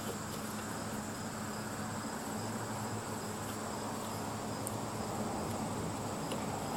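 Insects trilling steadily in a high, continuous chirr, with a faint low hum underneath.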